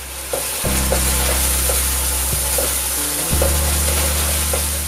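A wooden spoon stirs a bubbling candied sauce of melted vegan butter, sugar and coconut milk in a cast iron skillet, with a steady sizzle and repeated light scrapes of the spoon against the pan as the sauce cooks down.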